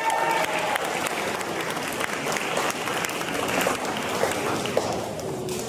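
Audience applauding, a dense patter of many hands clapping. A long high cheer carries over the first second.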